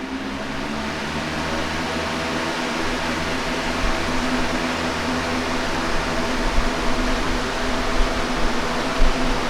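Electric house fan running steadily at speed: an even rush of air over a low, steady motor hum.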